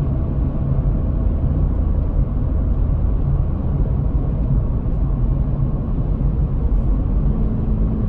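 Steady road noise inside a Toyota 4Runner's cabin at 60 mph: tyre rumble mixed with wind rushing over LFD Off Road roof-rack crossbars mounted at the very front of the roof rails. The noise has a mild hum to it, and a low steady hum becomes audible near the end.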